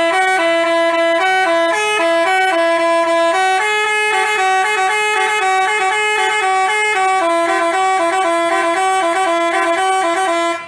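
Basuri telolet bus horn playing a quick melody, its notes stepping up and down with two pitches sounding together about an octave apart. It cuts off suddenly near the end.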